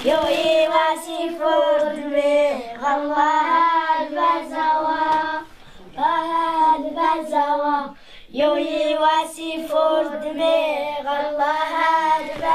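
A high solo voice singing a melody in long held, wavering notes, with two short breaths or pauses about five and a half and eight seconds in.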